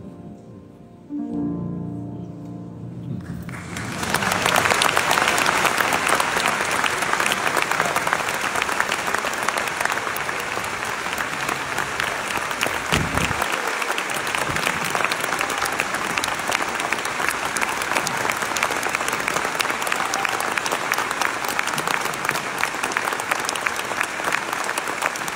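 Last notes of a two-grand-piano duet ringing out and dying away, then a large audience applauding steadily for the rest.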